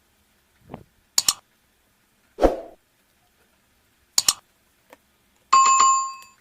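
A few sharp knocks and clicks, then, about five and a half seconds in, a small metal object struck or dropped that rings on in several steady pitches and fades.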